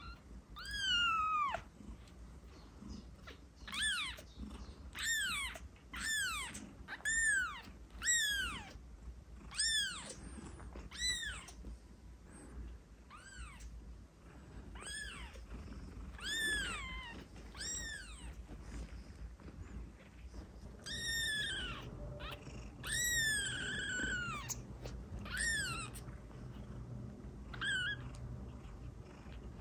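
Very young kitten mewing over and over: short, high-pitched calls that rise and fall in pitch, at times about one a second, with a few brief pauses.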